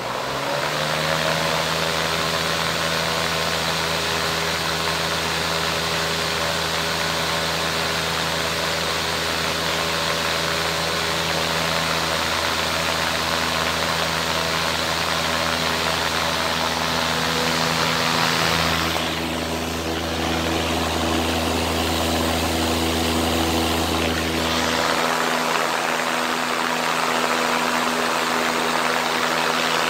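Wall-mounted exhaust fan starting up: the motor hum rises in pitch over the first second or two as it comes up to speed, then the fan runs steadily with a motor hum over rushing air. About two-thirds in, the lowest part of the hum shifts and then drops away while the fan keeps running.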